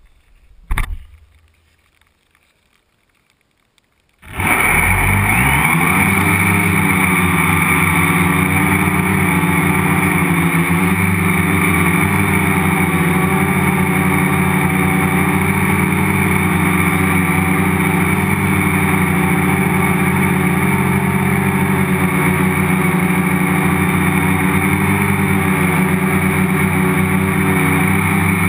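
Multicopter's electric motors and propellers spinning up about four seconds in, rising quickly in pitch, then running steadily with a stack of steady tones and a high whine, heard from a camera mounted on the frame. A short knock comes just under a second in, before the motors start.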